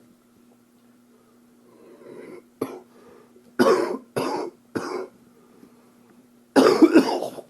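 A man coughing with an upper respiratory infection. One sharp cough comes a few seconds in, then three coughs in a row, then a longer fit of several coughs near the end.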